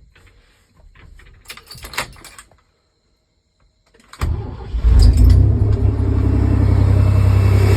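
Keys jingling and clicking, then a Chevy small-block TBI engine cranks and catches about four seconds in and runs steadily. It starts and runs with its faulty sensor unplugged; plugged in, that sensor floods the engine.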